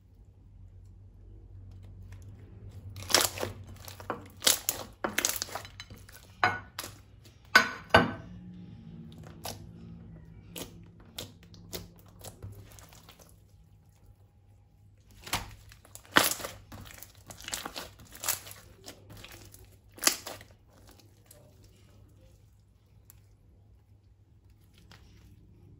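Hand-handled slime-making materials crinkling and crunching: sharp crackles in two clusters, one a few seconds in and another about two-thirds of the way through, with scattered single clicks between.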